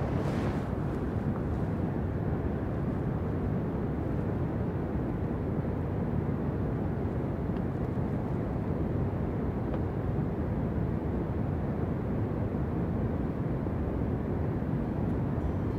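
Steady, deep rush of water pouring from the outlet of Union Village Dam, an unbroken roar with no distinct events.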